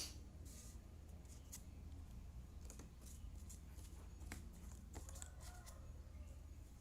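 Faint, scattered clicks and taps of jigsaw puzzle pieces being handled and set in place, over a low steady hum.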